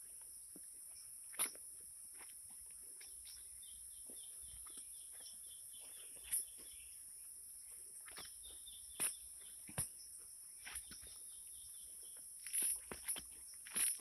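Outdoor garden ambience: footsteps on soil and bumps of a handheld phone make several sharp thumps, the loudest near the end. Under them is a steady high hiss, and a bird gives a rapid repeated trill twice in the middle.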